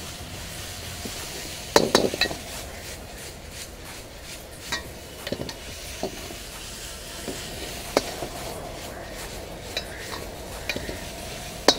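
A metal ladle scraping and clanking against a wok over a steady sizzle as food is stir-fried and tossed. The sharpest clanks come about two seconds in and at the very end.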